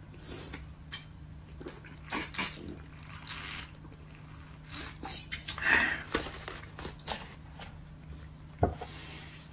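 A man drinking from a paper carton in gulps, with swallowing sounds and some handling of the carton; the loudest gulps come about halfway through, and a single sharp knock comes near the end.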